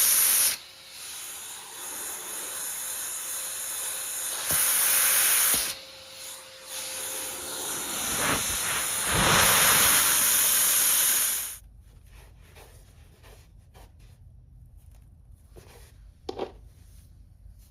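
Vacuum cleaner running with a loud suction hiss that swells and falls back several times, then cuts off about two-thirds of the way in. Only a few faint clicks and one short knock follow.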